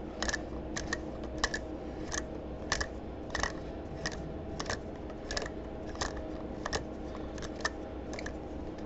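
Sharp metallic clicks, roughly one every half second, as a tap wrench turns a 3/8-16 bottoming tap back out of a freshly cut thread in a Harley Dyna's aluminum inner primary. A steady low hum runs underneath.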